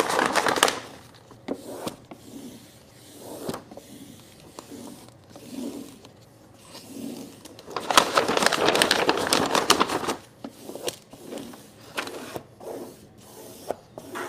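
Paper backing being peeled off adhesive vinyl wrap film while a squeegee presses the vinyl onto a chest freezer's side panel. It makes a rustling, crackling scrape in irregular strokes, loudest in a long stretch about eight seconds in.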